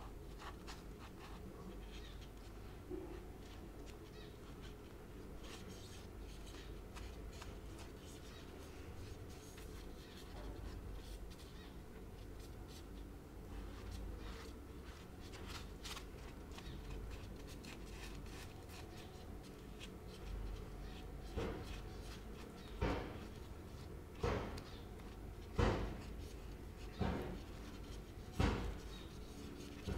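Fingers patting and rubbing wet plaster onto a foam diorama piece: faint rubbing at first, then a steady run of soft pats about every second and a half near the end.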